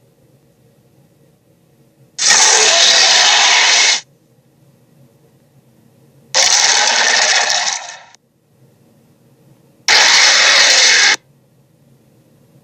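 Three loud, harsh dinosaur roar sound effects, each a second or two long, about four seconds apart. A faint low hum fills the gaps between them.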